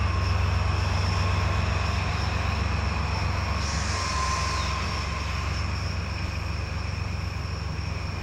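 Diesel shunting locomotive's engine running with a steady low drone as it moves off through the yard, with a faint steady whine above it. A brief hiss about four seconds in.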